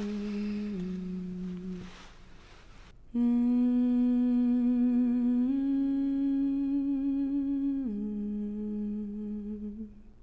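A voice humming slow, long held notes with a gentle waver. The first phrase steps down and fades out. A louder phrase starts suddenly about three seconds in, steps up in pitch, then steps back down and fades away near the end.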